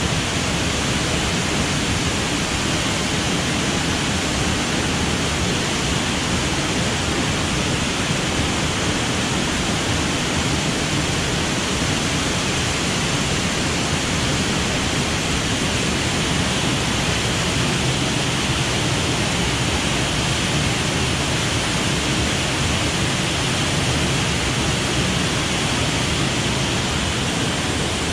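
Waterfall on a rain-swollen beck, heard close up: a loud, steady rush of falling water that never lets up.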